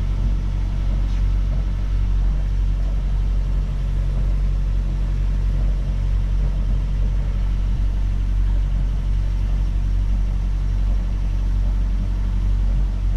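A Catalina 380 sailboat's inboard diesel engine running steadily at cruising speed, a constant low rumble.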